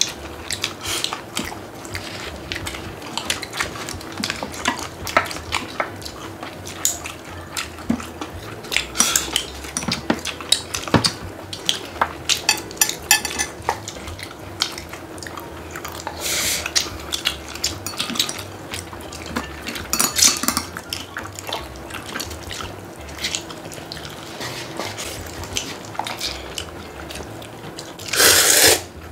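Table noise while eating: metal chopsticks clicking and scraping against cup-noodle bowls and plastic food trays, again and again. Near the end comes a loud burst of noodles being slurped.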